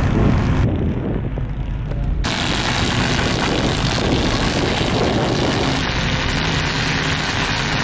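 Car engines running at a drag strip, a steady loud drone mixed with rushing noise that becomes fuller and brighter about two seconds in.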